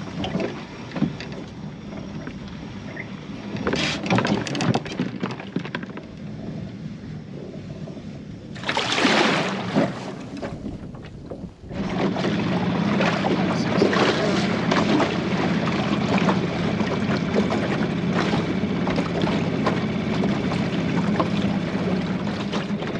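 Sound on the water around a small aluminium boat: wind on the microphone and water noise. A brief loud rush of noise comes about nine seconds in, and a steady low hum runs from about twelve seconds on.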